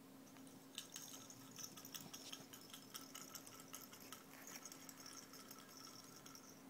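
Faint, quick rattling clicks of a plastic baby toy shaken by hand, starting about a second in and stopping near the end, over a low steady hum.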